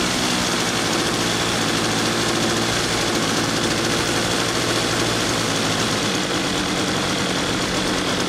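ASP 61 glow (nitro) engine of a 60-size RC Edge 540 plane running steadily at idle, freshly hand-started by flipping the propeller after sitting unused for months.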